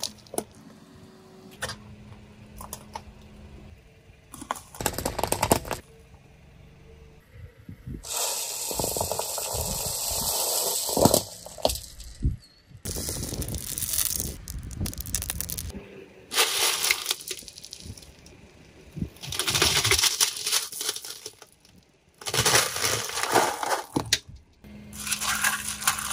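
Objects cracking, crackling and scraping as they are crushed under a car's tyres, in a run of short passages that start and stop abruptly.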